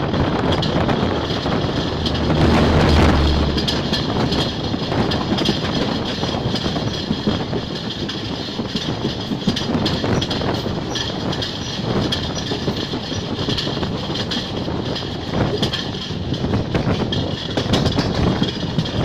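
ALCO WDG3A diesel locomotive passing close by on the next track, its engine's deep hum loudest about two to four seconds in. Then the double-decker passenger coaches roll past in a steady rumble, their wheels clattering over the rail joints.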